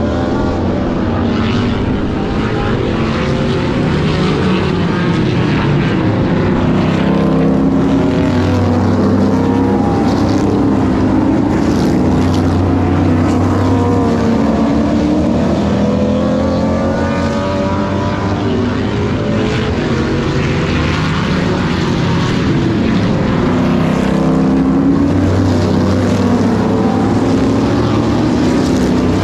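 A field of vintage modified race cars running laps, several engines at once passing by, their pitch rising and falling as the cars come through the turn and away.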